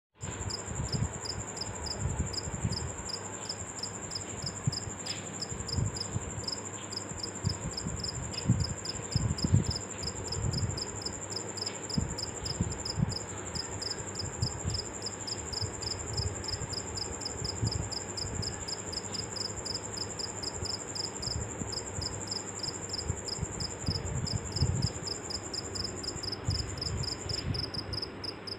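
Steady high-pitched insect trilling: a rapidly pulsing chirp and a continuous high tone running together, with irregular low rumbles underneath.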